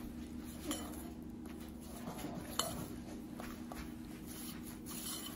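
Chopsticks stirring flour and water in a glass bowl, mixing it into a shaggy dough. Soft scraping with a few light clicks of the chopsticks against the glass.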